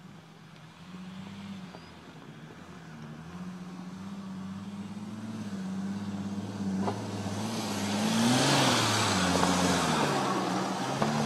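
Mercedes-Benz GLK SUV's engine pulling at low revs, its pitch rising and falling as it crawls over rough ground, growing louder as it comes closer. Near the end its tyres crunch over rocks and branches, with a sharp crack about seven seconds in and another near the end.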